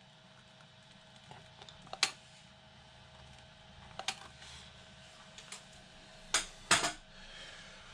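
Scattered sharp clicks and taps from handling a chemical-resin cartridge and its long mixing nozzle while injecting anchor resin, loudest as a close pair near the end.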